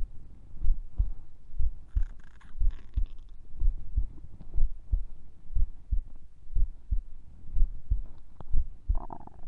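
A sleeping woman's heartbeat, a slow, even lub-dub about once a second, with her stomach gurgling about two seconds in and again near the end.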